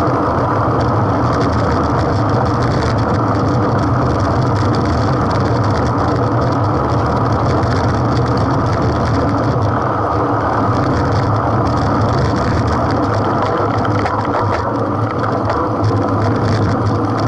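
Steady wind and road noise on a bicycle-mounted action camera riding in a road-race peloton: a constant low rush with faint ticking from tyres and drivetrain.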